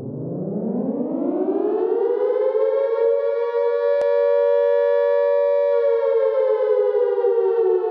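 Opening of an electronic music track: a sustained synth tone with many overtones that slides up in pitch over the first few seconds like a siren winding up, then holds steady and sags slightly near the end.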